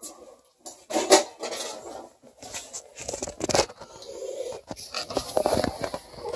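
Caulk gun being squeezed along the seams of a galvanized sheet-metal filter boot, with scrapes and knocks of the gun and gloved hand against the sheet metal. The sounds come in irregular bursts, the loudest about a second in.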